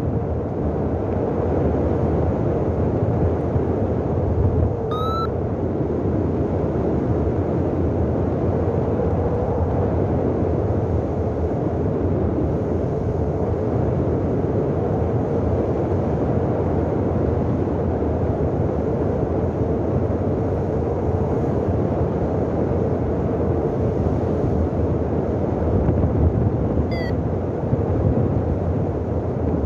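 Steady rush of airflow over the microphone of a paraglider pilot in flight. Two brief, faint rising chirps come through, about five seconds in and near the end.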